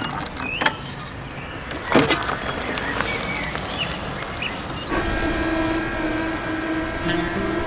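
Electric wheelchair jolting down a kerb, with two sharp knocks, while birds chirp. About five seconds in, music starts with held tones.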